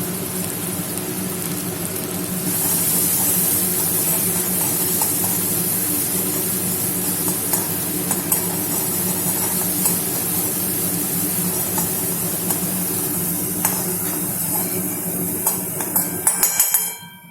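Onion-tomato masala with freshly added red chili powder sizzling in a pan while it is stirred, with light clicks of the spoon against the pan. The sizzle gets louder about two and a half seconds in and stops abruptly near the end.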